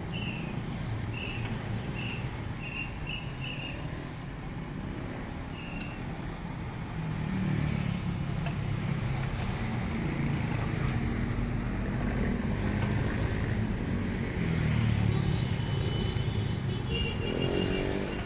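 Street noise dominated by the low rumble of motor vehicle engines, growing louder about seven seconds in. A string of short high chirps sounds during the first few seconds.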